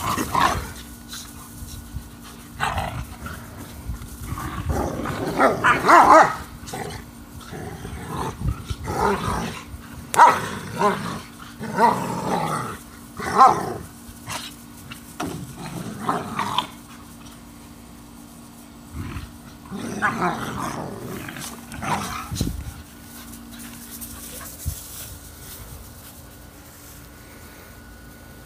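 Two dogs, one a pit bull mix, growling and barking in play as they tug a toy between them, in irregular bursts that die down a few seconds before the end.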